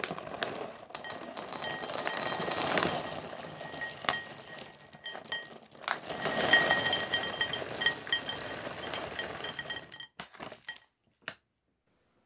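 Almonds poured from a bag into a ceramic bowl, clattering and clinking against it and setting it ringing. The pouring comes in two main spells, about a second in and again around six seconds, and dies away about ten seconds in.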